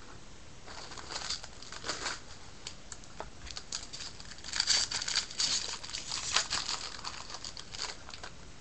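Crinkling of a trading-card pack's wrapper as it is handled, in irregular bursts that are loudest about halfway through.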